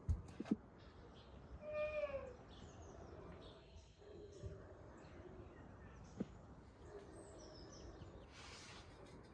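Quiet garden ambience with faint bird chirps. A hand flour sifter taps a few times at the start, and a short call with a rising-then-falling pitch sounds about two seconds in.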